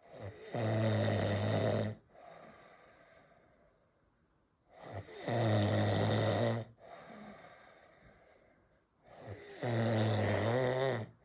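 A man snoring in his sleep: three long, loud, low buzzing snores about four and a half seconds apart, with quieter breaths between them.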